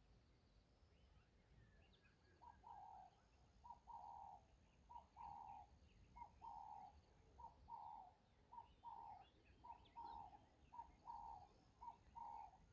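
A bird calling again and again, faintly: a short note and then a longer one, repeated about every second and a quarter from about two seconds in. Fainter chirps of small birds sit above it.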